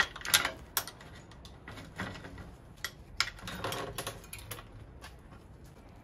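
Scattered light metallic clicks and clinks of hand tools working on a bicycle's rear axle and chain, with a brief rattle a little past halfway.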